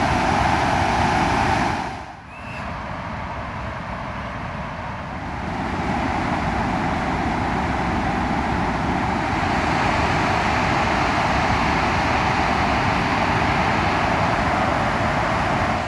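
Burdekin River floodwater roaring over the dam spillway and through rocky rapids: a steady rush of water that dips about two seconds in, then builds again.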